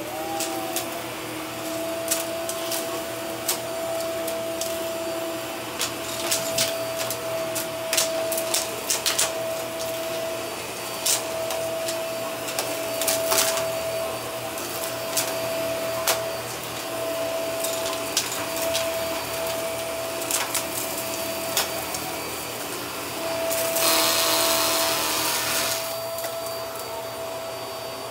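Upright vacuum cleaner spinning up as it switches on, then running with a steady whine, broken by many sharp clicks. The rush of air swells louder for a couple of seconds near the end.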